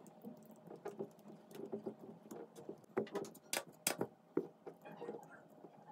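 A small transformer and its insulated wire leads being handled on a tabletop: irregular light clicks and rustling. The sharpest ticks come in a cluster near the middle.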